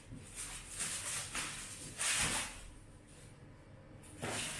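Plastic wrap and bubble wrap rustling and crinkling as they are pulled off a cardboard bicycle box, in several bursts.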